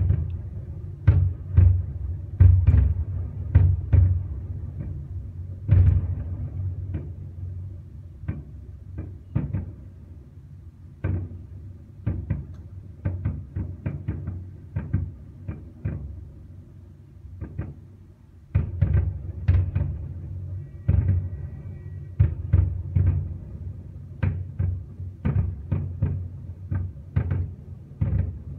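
Fireworks shells bursting in quick, irregular succession: sharp bangs over deep booms. They thin out in the middle and come thick and fast again near the end.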